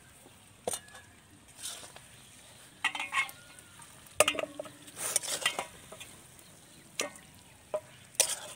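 A metal spatula scraping and clinking against a kadai as thick fried mutton is scooped out into a pot: a string of short, irregular scrapes and knocks, busiest from about three to five and a half seconds in.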